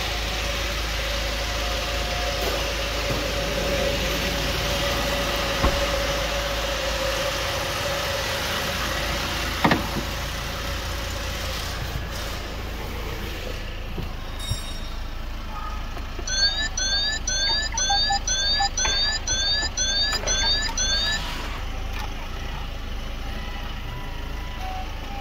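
Peugeot 508 1.6 diesel four-cylinder engine idling steadily, with a single knock about ten seconds in. About sixteen seconds in the car sounds an electronic warning chime, about ten short rising beeps at roughly two a second for some five seconds.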